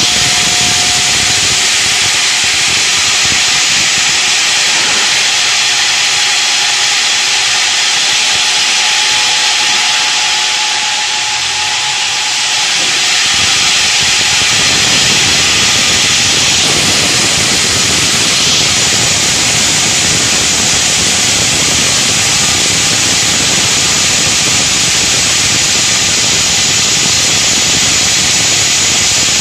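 Granite block cutting machines at work: saw blades cutting granite under a cooling-water spray, heard as a loud, steady hiss. About thirteen seconds in, a lower rumble joins the hiss.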